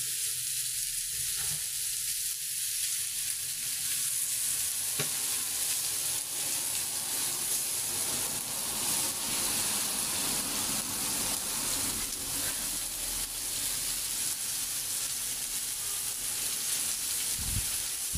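Meat sizzling steadily on a saç, a round iron griddle, with a wooden spatula turning the pieces at the start and again near the end.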